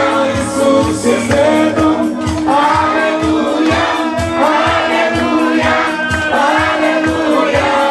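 Group of children singing a lively worship song together, led by a woman's voice, over music with a steady beat.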